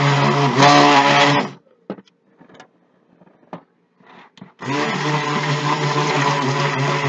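Stick blender motor running in a pitcher of cold-process soap batter, blending it. It stops about a second and a half in, leaving a few light knocks during a pause of about three seconds, then starts again and runs steadily.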